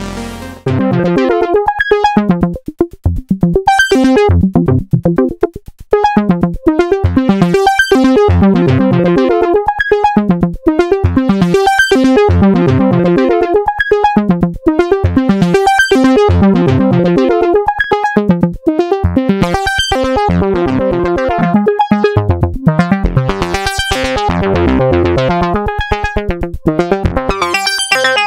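Modal Electronics Cobalt8M virtual-analogue synthesizer playing a fast, repeating pattern of short pitched notes, with a bright accent about every two seconds.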